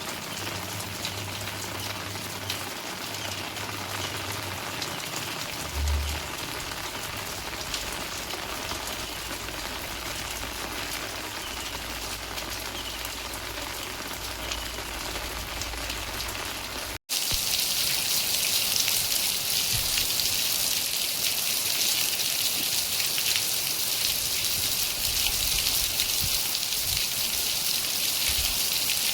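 Steady rain falling and pattering on surfaces. About two-thirds of the way through it cuts abruptly to a louder, hissier downpour.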